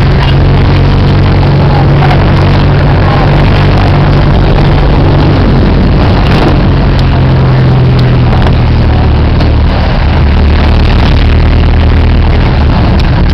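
Vehicle engine running while driving, heard from inside the moving vehicle along with road and traffic noise. The engine note drops lower about ten seconds in.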